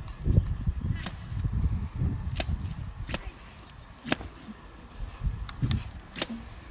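A sheepdog handler's flag on a stick being swung through the air, giving about seven sharp, irregular swishing snaps over a low rumble.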